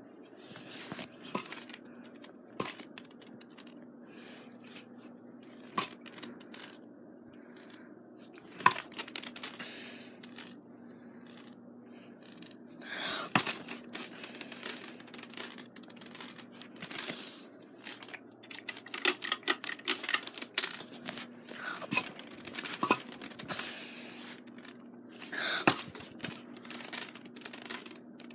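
Ceiling fan running with a steady low motor hum, broken by irregular clicks and short bursts of rustling or scraping noise.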